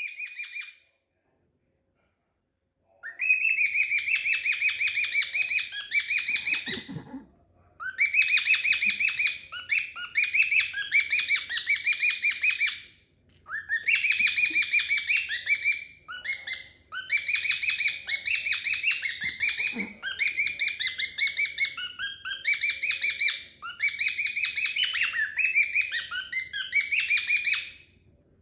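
Cockatiels chirping in long runs of rapid, repeated high calls, starting about three seconds in, with short pauses between the runs.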